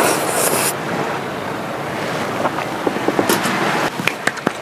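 Sea waves washing onto the beach with wind, a steady rushing sound; near the end a string of short clicks and taps.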